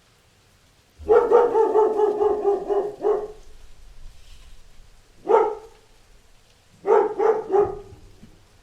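A dog barking. First comes a fast run of barks lasting about two seconds, then a single bark, then a quick burst of three or four barks.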